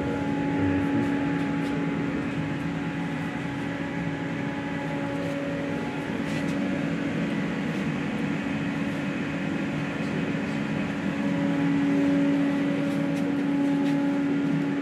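Steady mechanical hum carrying a low steady tone and a few fainter higher ones, swelling slightly near the end.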